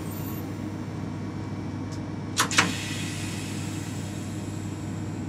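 Steady low hum of an EP20 electric locomotive's equipment heard in the cab, with two sharp clicks close together about two and a half seconds in.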